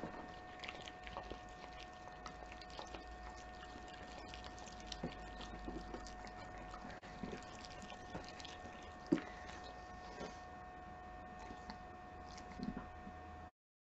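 A Keeshond eating a slice of ham and licking the tabletop afterwards: wet chewing, lip-smacking and licking clicks, with one louder smack about nine seconds in. A faint steady electrical hum runs underneath.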